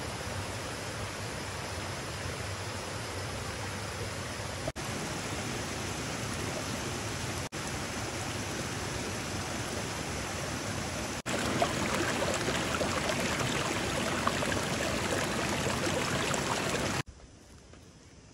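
Rocky forest stream rushing over boulders and small cascades, a steady rush of water broken by three brief dropouts and louder in its last stretch. About 17 seconds in it drops away to a much quieter outdoor background.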